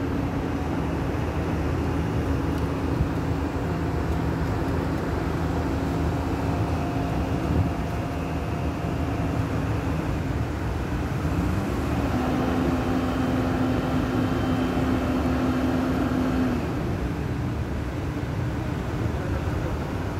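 Steady drone of running diesel machinery, with a low engine tone that shifts to a new pitch about halfway through, holds for several seconds and then drops away.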